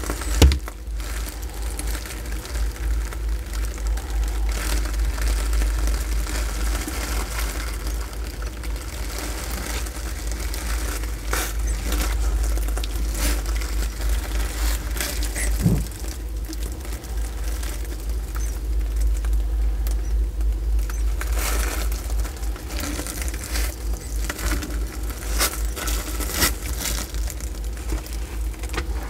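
Sulcata tortoise biting and chewing soft papaya, with scattered wet, crackling bites and sharp beak clicks, the loudest about half a second in, over a steady low rumble.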